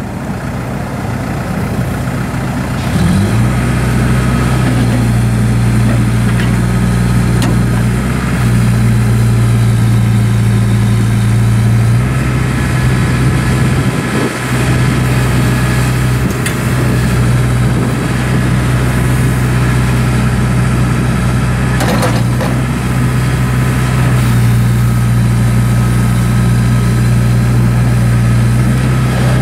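2007 John Deere 310J backhoe loader's four-cylinder diesel engine running steadily. Its engine note steps up about three seconds in and shifts a couple more times.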